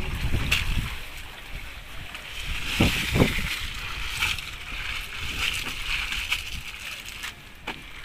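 Seawater sloshing and splashing beside a small fishing boat as green mussel clusters are shaken about in the water to clean them, with two short low sounds close together about three seconds in.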